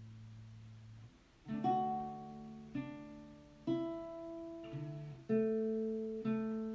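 Acoustic guitar: a held chord fades out, then after a brief pause new chords are strummed about once a second, each ringing and decaying before the next.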